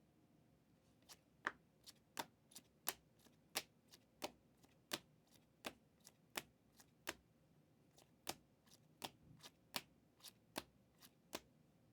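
Trading cards being handled and set down one by one on a table: a quiet run of sharp clicks, about three a second, starting about a second in.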